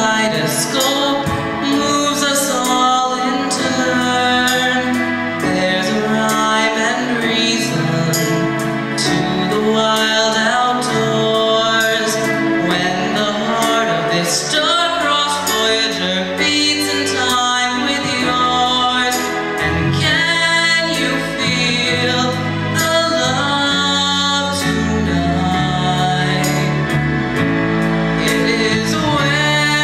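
A boy singing a song into a handheld microphone over instrumental accompaniment with a steady beat.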